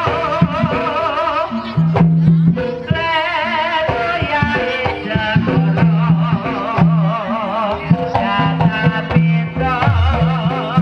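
Live Javanese kuda kepang ensemble music: sharp hand-drum strokes, repeated low sustained pitched percussion notes and a wavering high melody line over them.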